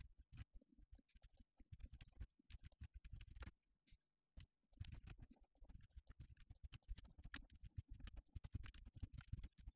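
Faint, rapid, irregular clicking of a computer keyboard and mouse being worked.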